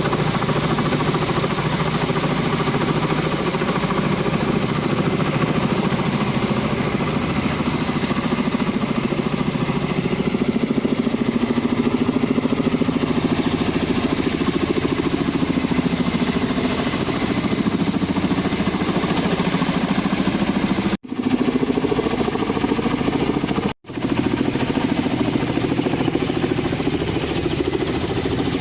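Kamov helicopter running, a steady rapid chop of the rotor blades over engine noise. The sound cuts out for an instant twice, about three-quarters of the way through.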